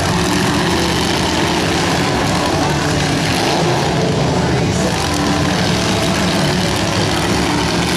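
Several demolition derby cars' engines running hard at once, a loud, steady engine din as the cars shove against each other.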